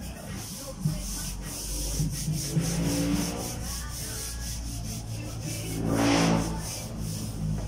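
Hands rubbing and smoothing nylon umbrella fabric flat over a wooden screen-printing pallet, a continuous brushing rub of palms on cloth. A louder swell rises and falls about six seconds in.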